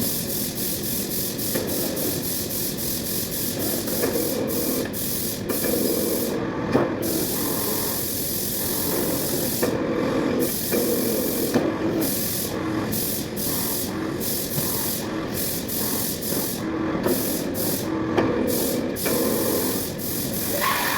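Sheet-metal workshop machine running with a steady hiss, a faint hum and occasional light clicks.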